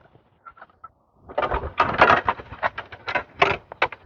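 Irregular run of rustling and clicking, starting about a second and a half in, as a dried sunflower head is handled and fastened with wire onto a garden arbor.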